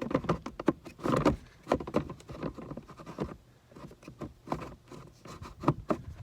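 Irregular clicks, knocks and scraping as a GM truck's HVAC blower motor is pushed up into its housing under the dash and twisted to lock it in place.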